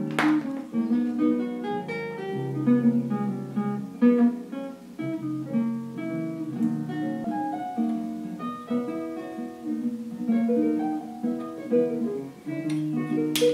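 Background music: acoustic guitar playing plucked notes and strummed chords over a bass line, with a brief scratchy noise just after the start and another near the end.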